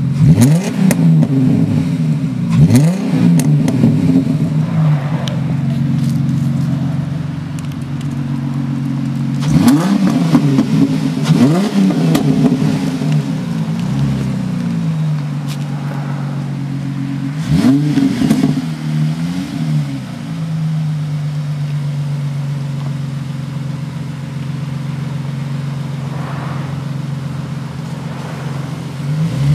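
2004 Dodge Intrepid's 3.5 L High Output V6 through a Magnaflow transverse muffler and dual stainless tailpipes, with the center resonator removed, idling and revved in quick blips, about seven over the first twenty seconds. It then idles steadily, and another rev starts at the very end.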